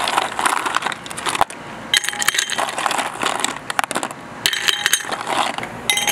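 Ice cubes dropped by hand into a tall cut-glass tumbler, clattering and clinking against the glass and each other in several separate bursts.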